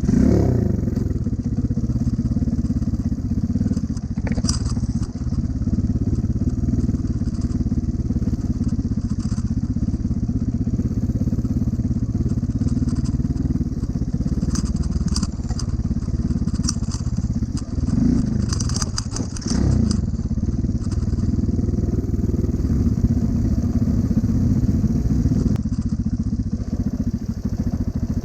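Small single-cylinder Honda Cub motorcycle engine running steadily under load on a rough, rocky track, its pitch swinging with the throttle near the start and twice about two-thirds of the way through. Loose stones crackle and click under the tyres.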